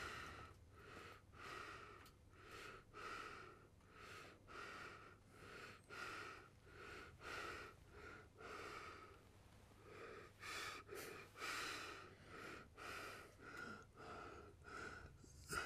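Near silence: room tone with a faint, soft sound repeating about twice a second.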